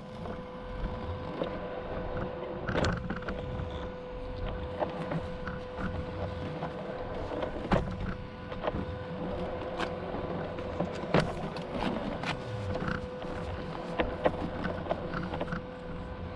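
A small motor hums steadily at one pitch, with scattered sharp clicks and cracks over it.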